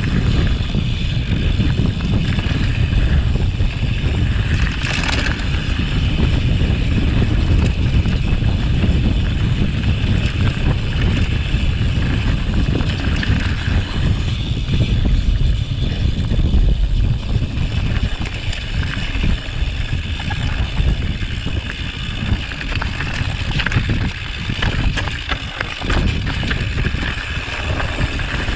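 Mountain bike descending a rocky mountain trail: heavy wind rumble on the camera microphone over the rattle of tyres and bike on stones. There is one sharp knock about five seconds in and a run of sharper knocks near the end.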